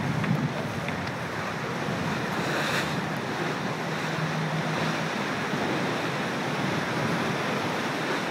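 Rushing water and wind as a First 30 sailboat runs fast downwind under gennaker, its hull tearing through the waves at around 14 knots, with wind buffeting the microphone. The sound is a steady, even rush.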